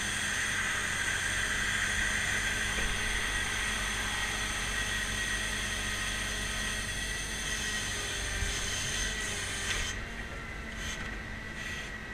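Grapple truck's hydraulic system and engine running as the boom and grapple are worked from the joysticks: a steady high whine over a low engine hum. About ten seconds in, the high whine drops away and the sound gets a little quieter.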